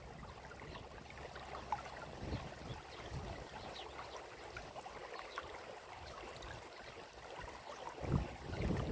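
Water flowing and trickling, with scattered small drip-like ticks. A low rumble comes in near the end.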